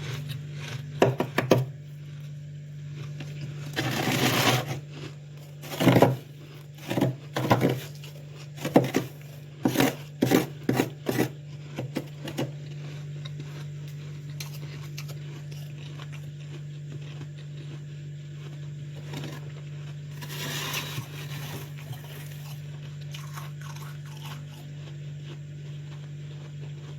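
Freezer frost being bitten and chewed close to the microphone: a run of sharp crunches in the first dozen seconds, then quieter chewing and scraping, with a longer scrape about twenty seconds in.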